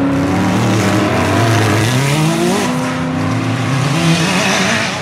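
Off-road race buggy's engine revving hard as it accelerates on a dirt track. The pitch climbs and drops back around the middle, then runs higher and steadier, over a hiss of tyres and flung dirt.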